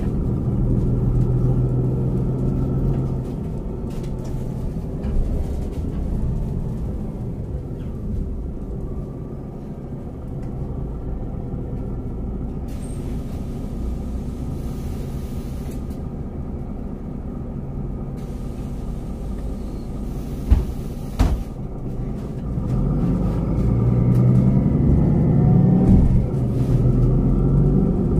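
City bus diesel engine running through a stretch of driving, easing off in the middle, then pulling harder with a rising note from about three-quarters of the way in. Two short sharp knocks sound just before it picks up.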